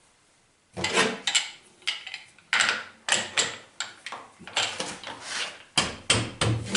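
Irregular metal clanks and knocks, about a dozen over five seconds, from workpieces being set and clamped in a metal shaper's vise. Near the end the shaper's motor starts up with a low hum.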